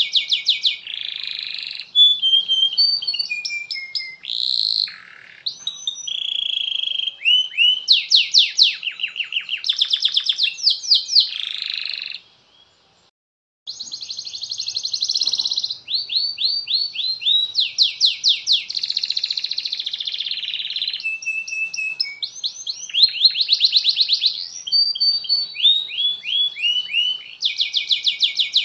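Domestic canary singing a long, continuous song of fast rolling trills and runs of rapid repeated chirps, high-pitched. It breaks off for about a second partway through, then goes on.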